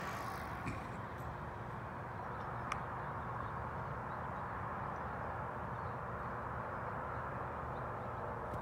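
Steady outdoor background noise, an even low rumble and hiss with a faint steady hum, broken once by a brief click a little under three seconds in.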